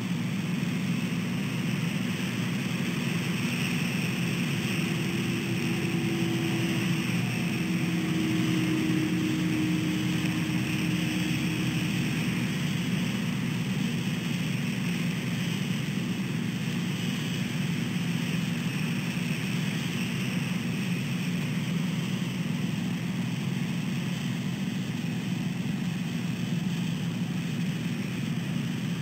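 Steady low rumble and hiss of road traffic on wet pavement. An engine drone rises out of it about five seconds in and fades by about twelve seconds, dipping slightly in pitch as it passes.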